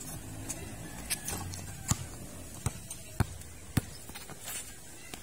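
A basketball dribbled on a concrete court: a series of sharp single bounces, roughly one every two-thirds of a second, starting about a second in.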